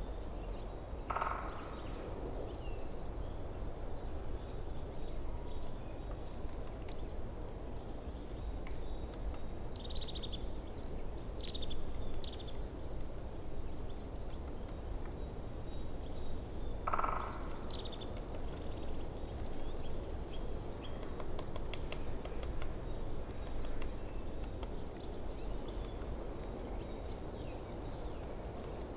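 Forest stream running steadily, with small birds giving short, high chirps in scattered clusters. Twice, about a second in and again just past the middle, a louder, lower call stands out.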